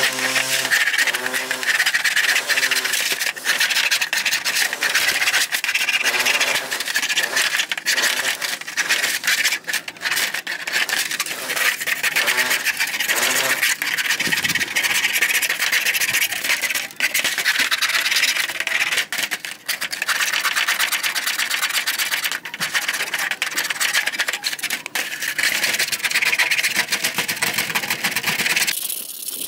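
Metal scraper blade scraped hard along a white plastic fan housing in quick repeated strokes, stripping off crusted grime. The scraping cuts off abruptly just before the end.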